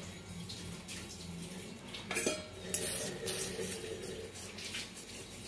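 Metal spatula scraping and clinking against the inside of an iron kadai as it is worked under a cooked rice-flour pancake to loosen it, in several short scrapes from about two seconds in.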